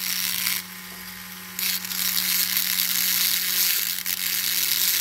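Handheld rotary tool running with a steady motor whine, its small grinding bit grinding down the crimped axle end of a diecast toy wheel, really loud. The high grinding noise drops away for about a second shortly after the start, then comes back.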